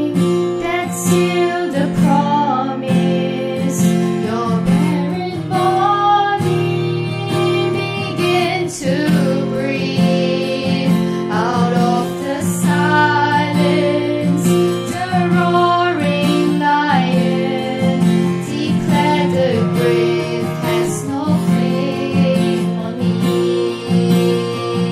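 A song with strummed acoustic guitar under a woman's singing voice.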